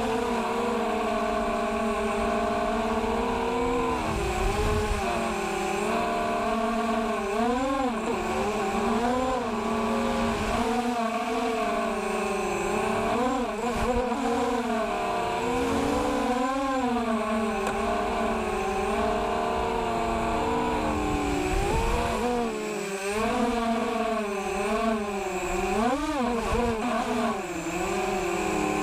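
An FPV mini quadcopter's four Sunnysky 1806 2000KV brushless motors on a 4S battery whining in flight, the pitch rising and falling with the throttle, with sharp swoops up about 8, 16 and 26 seconds in.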